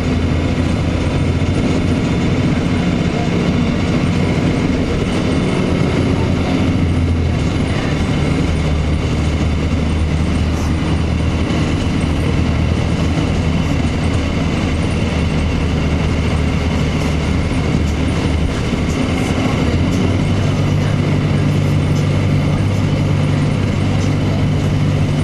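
2002 Blue Bird CS transit bus running under way: its Cummins ISC diesel engine drones steadily with the Allison automatic transmission, with light rattles from the body. The engine note changes about twenty seconds in.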